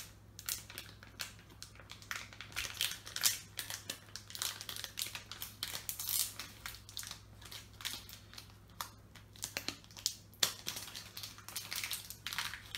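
Crinkling and crackling of a foil booster pack wrapper being handled and opened, in quick irregular crackles.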